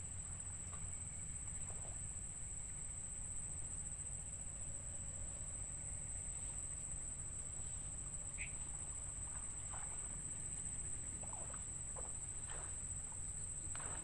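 Outdoor field ambience: a steady high-pitched drone like insects and a low steady rumble, with a few short faint chirps or peeps scattered through.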